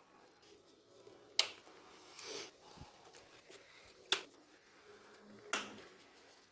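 Three sharp clicks of small hard parts being handled, the first about a second and a half in, the others near four and five and a half seconds, with a soft brief rustle between the first two.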